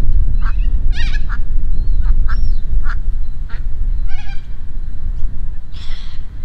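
Ducks quacking: a string of short calls, about ten over six seconds, over a steady low rumble.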